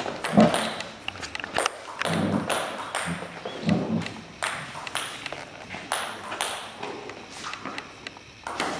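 Table tennis ball ticking sharply again and again off the bats, the table and the floor, the clicks coming unevenly a fraction of a second to about a second apart.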